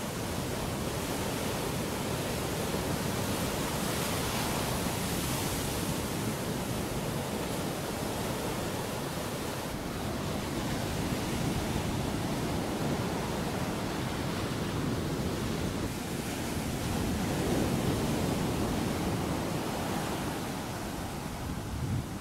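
Ocean surf rolling onto a beach: a steady rush of noise that swells and eases as waves break.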